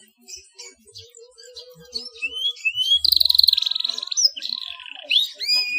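Domestic canary singing. Faint scattered chirps at first, then from about two seconds in rising whistled notes and a loud, rapid trill, followed by more upward-sliding whistles near the end.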